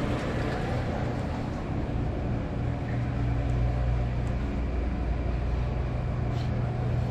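Steady low hum with a noisy background hiss, as in a large store's room noise, with a couple of faint ticks.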